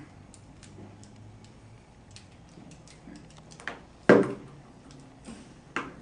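Small clicks and taps of a coax cable and connector being handled in a hand compression tool. A loud knock comes about four seconds in and a sharper click near the end.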